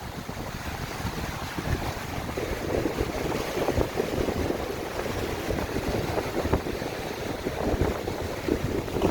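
Strong, gusty sea wind buffeting the microphone, with waves surging on the shore underneath.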